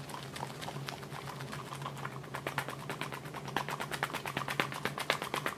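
A rapid run of light, evenly spaced clicks that grows faster and a little louder from about two seconds in.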